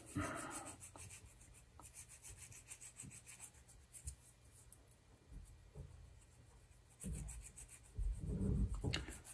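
White burnishing stick rubbing on the metal slip-ring of an old carbon-track potentiometer, in faint, short scraping strokes. It polishes the wiper's contact surface to restore good contact. Some low-pitched handling noise comes in the last couple of seconds.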